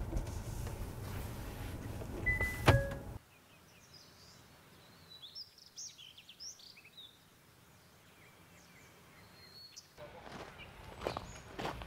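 Low road rumble inside a moving car, with one sharp click near the three-second mark. It cuts to near quiet with faint birds chirping in short high calls, and from about ten seconds in come footsteps on a path.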